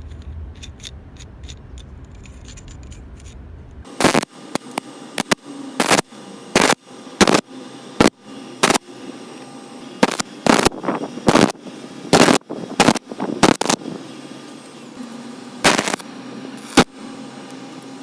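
A series of sharp knocks, irregularly spaced, about twenty of them, starting about four seconds in. Before them there is a low steady rumble.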